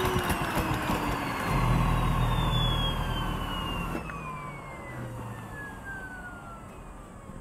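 Vacuum cleaner motor winding down after being switched off, its whine falling steadily in pitch and fading, with a low rumble in the first few seconds; the wooden vacuum-driven engine's clatter has stopped.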